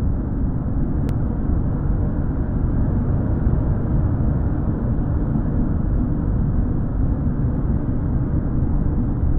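A steady low rumble, nearly all of it in the bass, swelling slightly at the start and then holding level.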